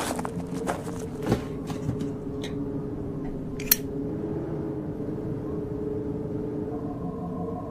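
Footsteps crunching over rubbish with a few crackly knocks in the first two seconds, then a single sharp click about three and a half seconds in, over a steady low hum.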